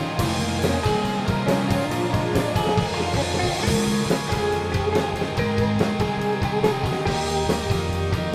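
Indie rock band playing an instrumental passage on electric guitars, bass guitar and drum kit, with no singing.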